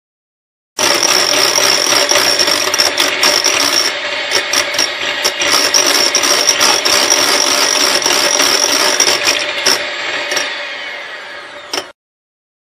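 Electric hand mixer running at high speed, whisking egg yolks in a glass bowl, with scattered clicks of the beaters. It starts abruptly about a second in, fades over the last couple of seconds and cuts off shortly before the end.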